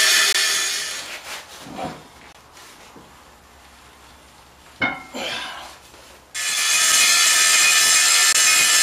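Angle grinder grinding down the MIG-brazed silicon bronze cladding on a cast-iron winch drum to bring it round again. The grinding tails off over the first second or so, a single knock comes near five seconds, and loud grinding starts again about six and a half seconds in.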